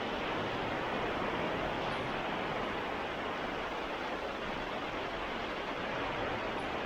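Baltic Sea waves washing onto a sandy beach, a steady rushing surf without distinct single crashes.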